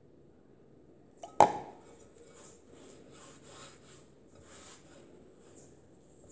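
A single sharp knock from the plastic water cup about a second and a half in, then soft, irregular rustles of hands mixing wet flour dough in a glass bowl.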